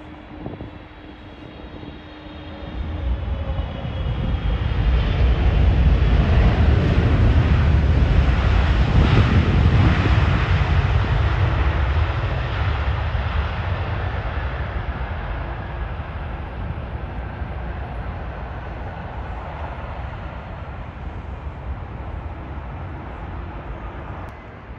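Boeing 777 landing: its two jet engines spool up to a loud, deep rumble a few seconds after touchdown, the reverse thrust of the landing roll, then slowly die away as the jet slows.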